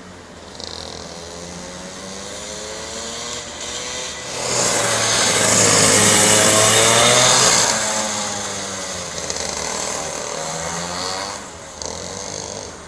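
Racing kart engine running and changing pitch as the kart laps. It grows loud with a strong hiss as the kart passes close, from about four to eight seconds in, then fades away.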